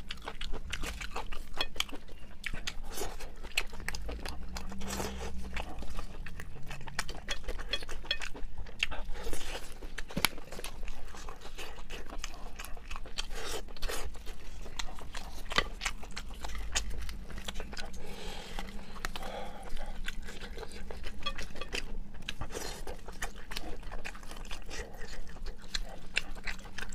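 Close-up eating sounds of a cooked sheep's head: wet chewing and smacking, with many quick irregular clicks as the meat is pulled from the bone by gloved hands.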